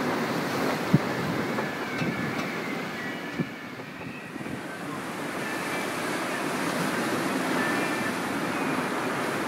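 Wind buffeting the microphone and water rushing along a sailing yacht's hull and wake as it runs fast through breaking seas, with two light knocks about a second and three and a half seconds in.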